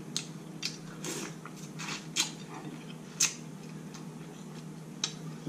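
Someone chewing a saucy seafood boil: scattered wet mouth clicks and smacks, the sharpest about two and three seconds in, over a low steady hum.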